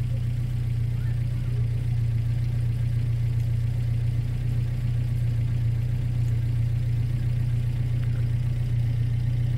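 A motor vehicle engine idling steadily, a constant low drone.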